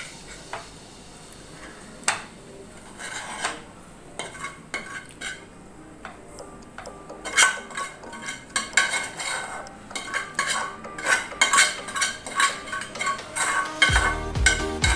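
Metal spatula scraping and clinking against a frying pan and a ceramic plate as cooked poha is served out: scattered scrapes and taps at first, then a busy run of them from about halfway through.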